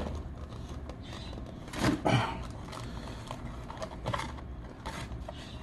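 Rustling and crinkling of paper as a small child handles a paperback book's pages and a grease-stained takeout bag, loudest about two seconds in, over a steady low hum.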